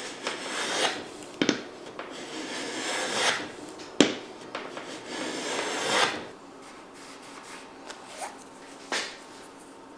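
Hand plane shaving a thin strip of wood in about three long rasping strokes, with sharp knocks between them, the loudest about four seconds in. After that it goes quieter, with a couple of light taps.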